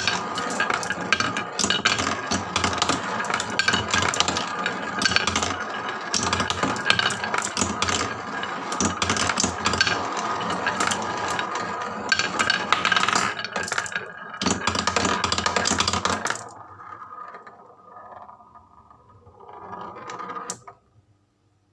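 Many marbles rattling and clicking as they roll down wooden HABA slopes, a dense clatter that drops away suddenly about sixteen seconds in, leaving a few scattered clicks.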